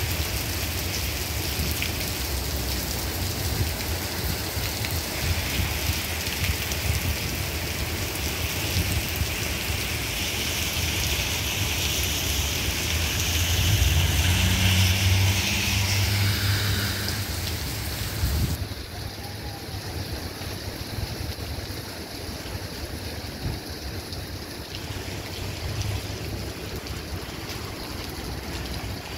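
Heavy rain pouring onto a wet street as a steady hiss. A car drives through the water in the middle with a low engine hum, the loudest moment. After that the rain turns suddenly quieter and duller, heard from beneath a sidewalk scaffolding shed.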